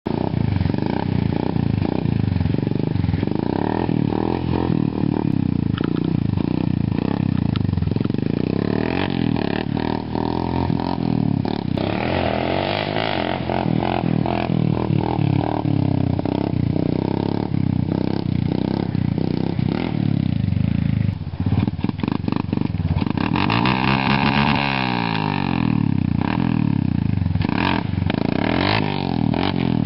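Honda Recon ATV's single-cylinder four-stroke engine through an HMF aftermarket exhaust, revving up and down again and again as the quad is pulled into wheelies and ridden around.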